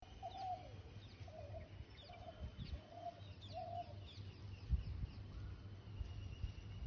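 Five short clucking calls from a fowl-like bird, spaced a little under a second apart in the first two-thirds, over faint high chirps of small birds and a low rumble with a single low thump.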